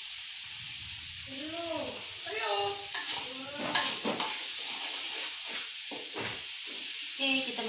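Spice paste sizzling in hot oil in a metal wok, with a spatula scraping and clicking against the pan as it is stirred; the clicks come mostly in the second half.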